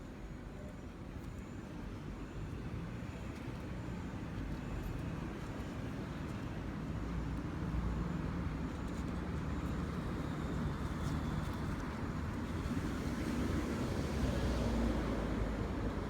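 Road traffic: passing motor vehicles make a steady low rumble that grows gradually louder, loudest near the end as a vehicle goes by.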